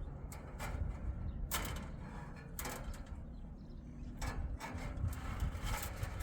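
A series of irregular scrapes and knocks, about six of them at uneven intervals, over a steady low rumble.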